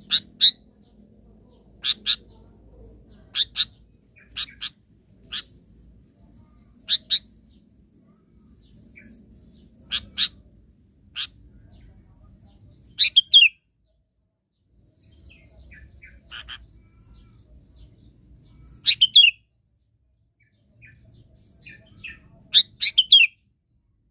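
Sooty-headed bulbul (kutilang) calling: short, sharp chirps, often in quick pairs, every second or two, with a few longer phrases that drop in pitch. A bulbul lure call of the kind used to draw other bulbuls in.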